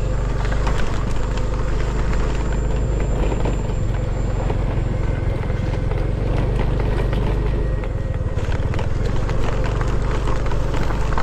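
Motorcycle engine running steadily under way on a rough dirt track, with constant rattling and knocking from the bike's loose bodywork over the bumps (its front body panel is cracked).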